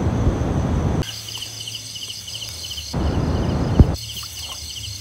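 Crickets and other night insects chirping in a steady rhythmic pulse, about three chirps a second, over a constant high insect trill. Two bursts of rough noise close by cover them, during the first second and again from about three seconds in, the second ending in a sharp knock.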